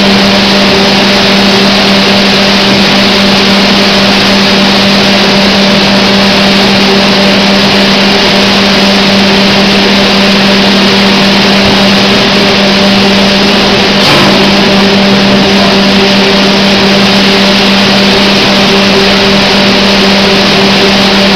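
Flour packing machine line and its conveyors running: a loud, steady machine drone with a constant low hum, and one brief knock about two-thirds of the way through.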